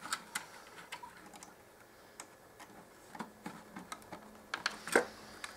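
Small circuit-board connector being handled and plugged back in inside an opened bench power supply: scattered light clicks and taps, with one sharper click near the end.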